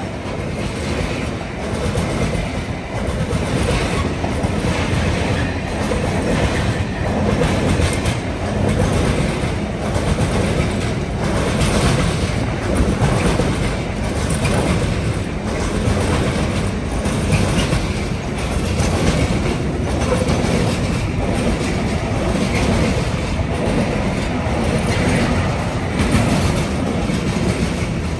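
Container freight train's flat wagons rolling past at close range: a steady rumble of wheels on rail with clacks repeating at an even rhythm as the bogies pass.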